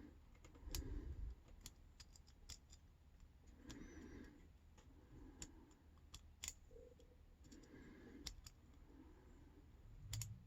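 Faint, irregular small clicks and ticks of a lock pick working the pin stack of an all-brass Yale padlock held under light tension, probing and setting its mushroom security pins.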